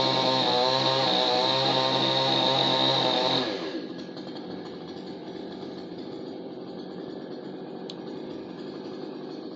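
Chainsaw engine running at high speed, then the throttle is released about three and a half seconds in and it falls to a lower, quieter idle.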